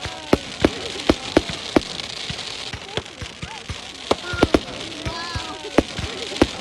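Fireworks display going off: an irregular string of sharp bangs and pops, several a second, over a steady crackling hiss.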